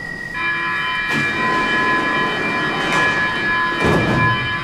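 Stockholm metro train at the platform with its doors closing: a steady electronic warning tone sounds for several seconds, and the doors shut with knocks, the heaviest near the end.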